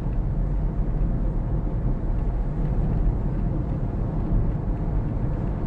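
Steady low rumble of a Toyota Prius heard from inside the cabin while driving.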